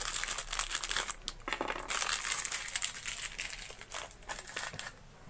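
Clear plastic packet crinkling and crackling as it is handled and opened to take out a new pump water seal, with small clicks among the rustle; it dies down about four seconds in.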